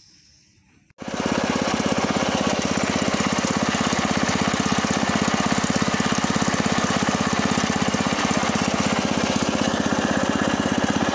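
Small petrol engine of a narrow wooden fishing boat running steadily close by, with a fast, even firing beat. It cuts in suddenly about a second in.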